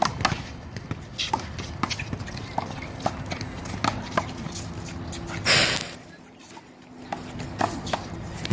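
A one-wall handball rally: sharp smacks of a rubber handball struck by hand and hitting the wall, coming at irregular intervals, mixed with players' sneaker steps. A short burst of rushing noise comes about five and a half seconds in.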